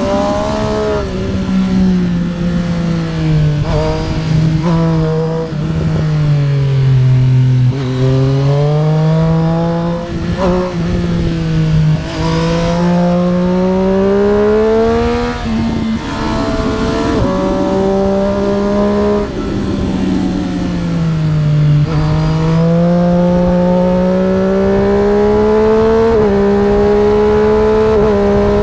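Triumph Street Triple RS's three-cylinder engine pulling hard, its revs climbing and falling again and again through gear changes and throttle lifts, with wind rushing over the bike.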